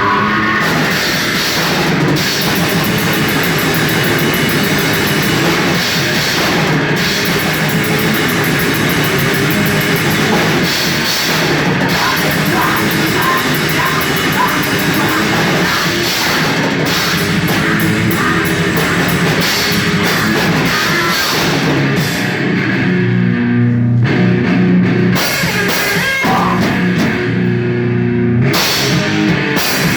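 A heavy rock band playing live: distorted guitars, bass and a drum kit with pulsing cymbals, loud and dense. For a few seconds near the end the cymbals drop out and only heavy, low chugging parts carry on, then the full band comes back in.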